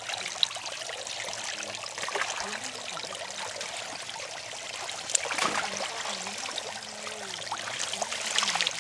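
Shallow muddy water trickling and sloshing in and around a mesh net bag of live fish, with small splashes as the fish stir in it.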